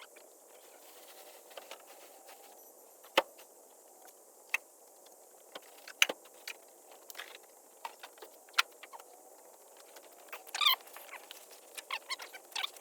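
Scattered sharp clicks and knocks a few seconds apart, the sound of tools and parts being handled while working on a car, with a short quick rattle about ten and a half seconds in.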